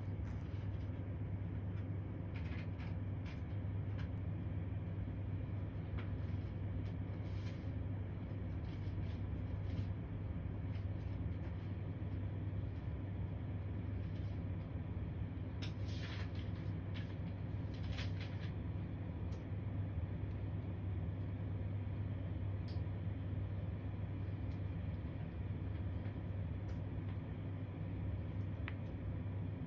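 Steady low background hum with a few faint, short clicks.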